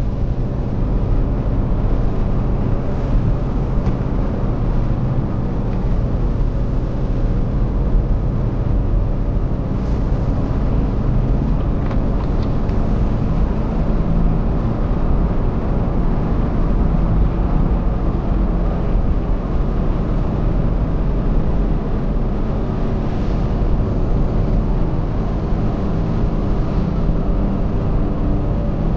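Car engine and tyre noise heard inside the cabin while driving steadily on a snow-covered road, a continuous low hum.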